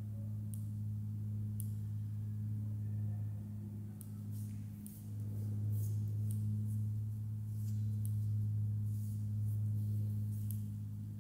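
A low, steady ambient music drone with a second tone an octave above, dipping briefly a little before halfway and then swelling. Faint light ticks sound over it.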